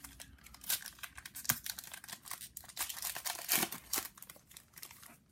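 Plastic wrapper of a trading-card pack being torn open and crinkled by hand, a run of irregular sharp crackles.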